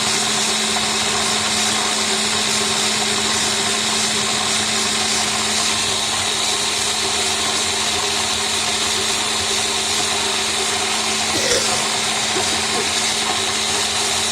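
Electric blender running steadily at one speed, grinding chopped red onion into a juice-like pulp. It is switched off at the very end, its motor hum dropping in pitch as it winds down.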